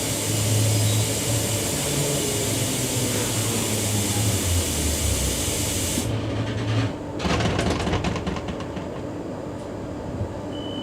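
Queensland Rail electric multiple unit train pulling into a station: a low motor hum falling in pitch under a steady hiss that cuts off suddenly about six seconds in, followed by scattered knocks and clatter.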